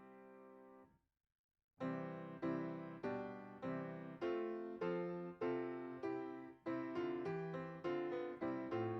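Piano music: a held chord dies away, the sound cuts to complete silence for under a second, then the piano comes back with a steady run of struck notes, about two a second.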